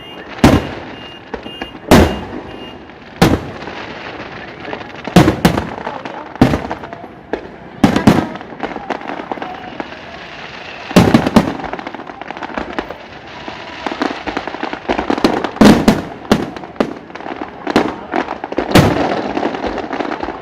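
Aerial firework shells bursting high overhead, about a dozen loud bangs at irregular intervals of one to three seconds, with many smaller pops in between.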